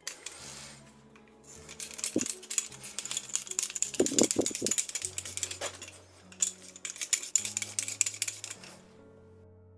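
Rapid metallic clicking and clinking of FELCO 7 secateur parts being handled and undone during disassembly, a dense run of small metal-on-metal clicks that starts about a second and a half in and stops shortly before the end.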